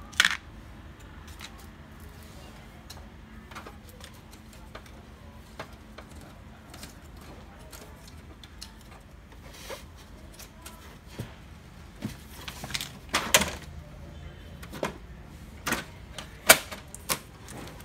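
Clicks and knocks of the HP LaserJet M135a's plastic panels and parts being handled and pried during disassembly. A sharp click right at the start, scattered light ticks, then a run of louder clacks in the last few seconds.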